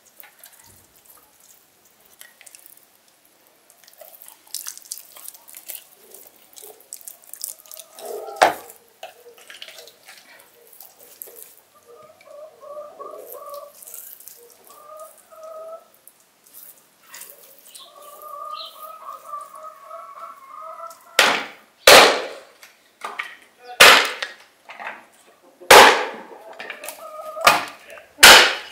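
Hatchet blows splitting kindling sticks: about six sharp, loud strikes in the last third, roughly one every second or two. Before them, faint wet squelching and rustling of hands stuffing and rubbing a whole raw fish.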